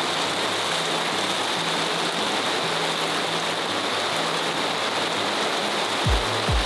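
Heavy rain pouring steadily, an even hiss with no let-up. A low background music beat comes in near the end.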